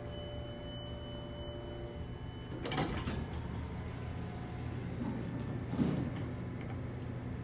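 Elevator chime tone ringing on and dying out, then the elevator doors sliding with two short rumbling surges about three seconds apart, over the car's steady low hum.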